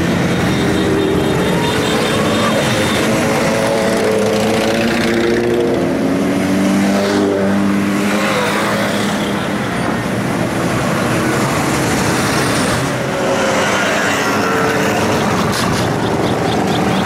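Several motorcycle engines running at once as a slow parade of bikes rides past. Their pitch shifts up and down as individual bikes come close and go by.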